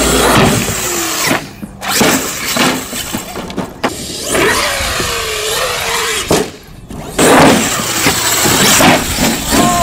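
Traxxas X-Maxx electric RC monster truck driving over gravel: motor whine and tyre noise, the whine falling then rising around the middle. The sound breaks off abruptly a few times.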